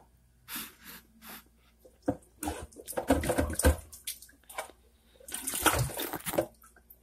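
Water sloshing and splashing in a basin as a whole plucked chicken is rinsed by hand, in uneven bursts that are busiest about two to four seconds in and again around six seconds.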